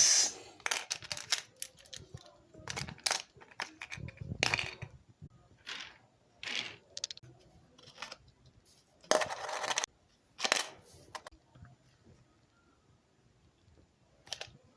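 Irregular clicks, clatters and short rustling bursts of small hard objects being handled, loudest at the very start and again about nine seconds in.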